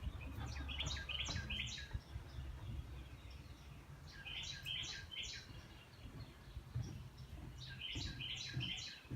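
A songbird singing three short phrases of four or five quick notes each, a few seconds apart.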